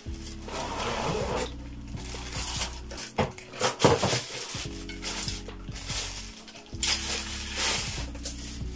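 Clear plastic bag crinkling and rustling in bursts as a folded metal light stand is pulled out of it, with a few light clinks from the stand's tubes, over background music with sustained low notes.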